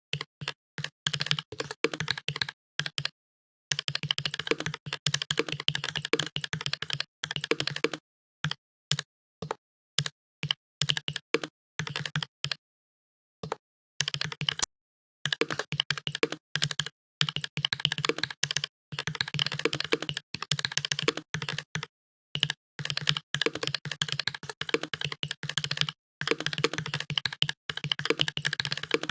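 Computer keyboard being typed on fast: runs of rapid keystroke clicks, broken a few times by pauses of about a second.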